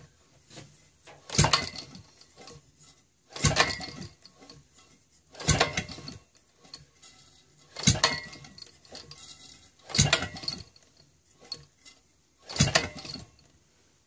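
A Maytag Model 72 single-cylinder two-stroke engine spun over by hand at the flywheel, six short bursts about two seconds apart, without catching. The owner puts the failure to start down to no fuel reaching the engine.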